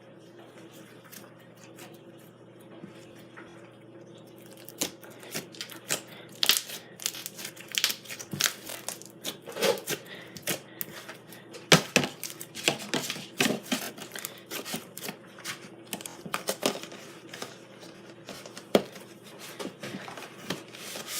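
Pink slime being worked by hand, giving off many sharp, irregular pops and clicks that start about four seconds in and come thick and fast after that, a few much louder than the rest.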